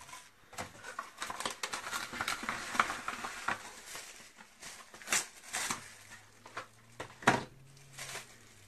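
Plastic cling film crinkling and rustling as it is pressed and smoothed into a loaf tin, followed by two sharp knocks a couple of seconds apart.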